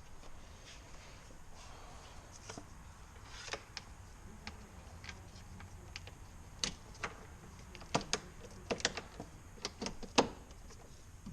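Scattered sharp clicks and knocks of hand work on a car's door trim: parts and tools being handled, the clicks coming thicker from about two-thirds of the way in, the loudest a single knock near the end.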